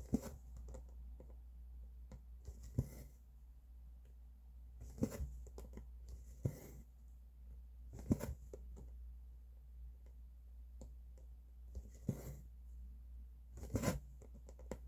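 Cross-stitch needle and thread drawn through fabric, one short stroke every second or two, over a steady low hum.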